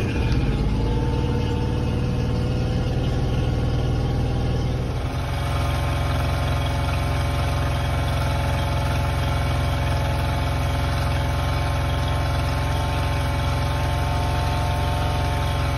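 Honda 25hp four-stroke, three-cylinder outboard motor running steadily at fast idle just after a cold start, out of the water on flush muffs fed by a garden hose. Its note settles slightly about five seconds in.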